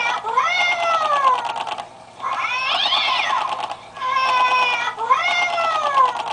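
Animated skeleton-cat Halloween prop playing recorded cat yowls through its speaker: about four long meows, each rising and then falling in pitch, the middle one with two warbling voices crossing over each other. The calls stop abruptly at the end of the prop's cycle.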